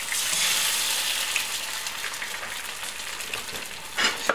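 Eggs frying in a hot cast-iron skillet: a steady sizzle, louder for about the first second as a second egg goes into the pan. A short sharp click near the end.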